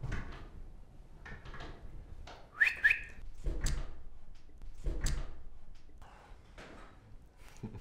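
Someone whistling: two short rising notes in quick succession about a third of the way in, among a few soft thuds.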